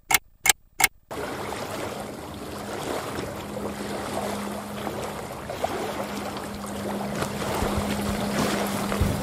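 Clock-ticking sound effect, about three sharp ticks a second, for the first second. Then waves wash against a rocky lake shore in wind, with a faint steady hum underneath.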